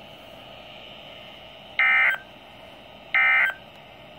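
Emergency Alert System end-of-message data bursts on a NOAA Weather Radio broadcast: two short, buzzy digital tone bursts about a second and a half apart, each lasting about a third of a second. They signal the end of the warning message.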